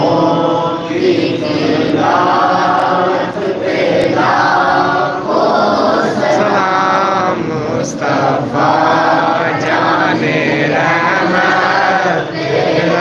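A group of men chanting devotional lines together in unison, in phrases of one to two seconds with short breaks between them.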